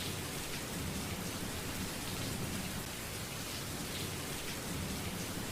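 Recorded rain playing as a looping white-noise track: a steady, even hiss of rainfall on a surface.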